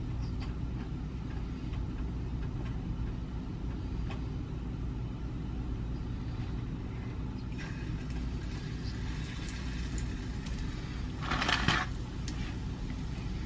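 Hot oil sizzling faintly in a frying pan over a steady low hum. Near the end comes a short, louder sizzle as a batter-dipped cookie goes into the oil to deep-fry.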